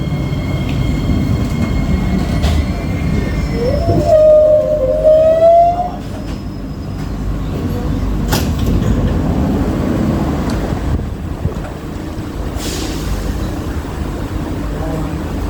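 Kawasaki-Sifang C151B metro train running, heard from inside the car: a steady rumble with a thin high whine that fades out, then about four seconds in a loud squeal from the train that rises slightly in pitch and stops about two seconds later.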